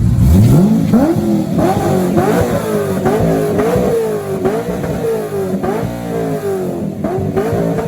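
Car engine revved hard from idle about half a second in, then held at high revs with its pitch surging up and dipping back about once a second, easing off near the end.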